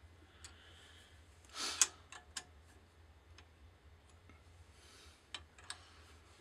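Scattered sharp metal clicks from a T-handle chuck key being fitted and turned in the jaw screws of a four-jaw lathe chuck while brass stock is centered against a dial indicator. The loudest is a short scrape ending in a sharp click just under two seconds in, with a few lighter clicks later, over a faint steady low hum.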